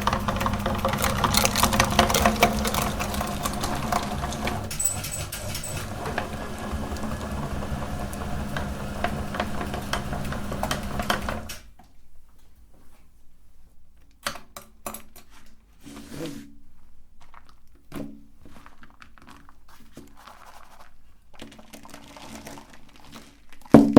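Electric meat grinder running steadily with a low motor hum while chocolate bars crackle through it, then switched off about halfway through, stopping abruptly. Afterwards only scattered light clicks and taps, with a couple of louder knocks near the end.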